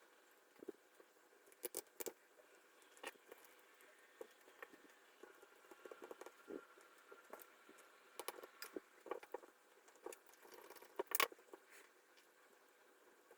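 Irregular clicks, taps and light knocks of small 3D-printed plastic parts and micro switches being handled and fitted together while a modular rotary switch is assembled. The loudest cluster comes about eleven seconds in.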